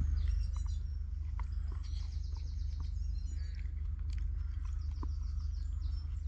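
Woodland birds singing, with a rapid trill of repeated high notes about two seconds in and again near the end, over a steady low rumble. Faint clicks of a spoon in a mug as porridge is eaten.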